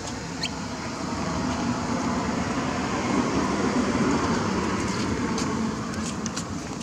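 Rumbling noise of a passing motor vehicle, swelling to a peak about halfway through and easing off near the end, with a few faint clicks near the end.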